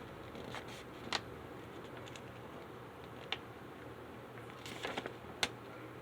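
A paper letter being handled, with a few scattered light clicks and crinkles over a faint steady hum.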